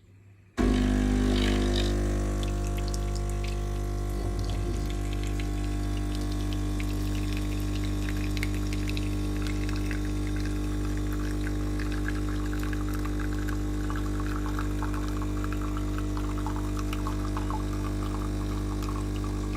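De'Longhi coffee machine's pump switching on abruptly about half a second in and running with a steady hum while coffee runs into the cup.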